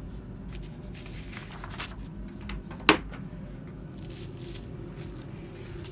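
Handling noise: light rustles and scattered clicks over a low rumble, with one sharp click about halfway through. No motor is running.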